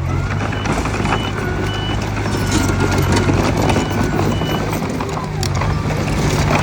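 Reversing alarm on heavy earthmoving machinery beeping at a steady pace, over a diesel engine running and a metallic clatter.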